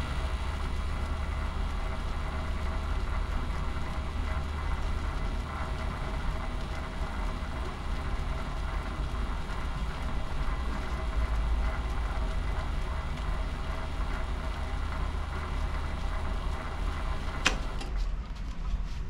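WM210V variable-speed bench lathe running steadily with its motor and spindle turning a chuck holding a threaded rod. Near the end a single click, and the motor's hum and whine drop away as the lathe is switched off.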